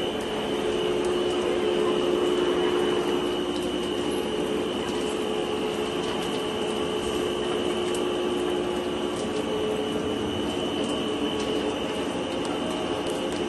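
XK610 two-roll rubber mill running with rubber compound banded on its rolls: a steady mechanical hum with a constant high whine, and a few faint ticks.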